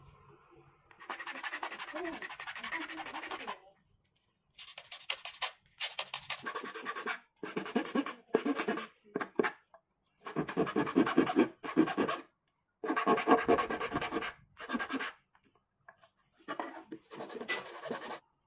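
Flat metal hand file rasping across a small piece of wood in runs of repeated strokes, broken off several times by sudden silences.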